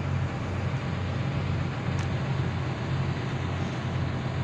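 Steady low rumble of a vehicle running nearby, with a faint click about two seconds in.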